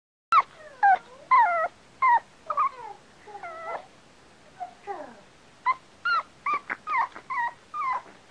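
A group of corgis yipping and whining as they play together. Short, high calls come about two a second and bend up and down in pitch.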